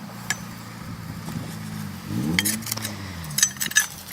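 Scattered sharp clinks and clicks of small hard objects knocking together, over a low steady hum whose pitch swoops up and back about two seconds in.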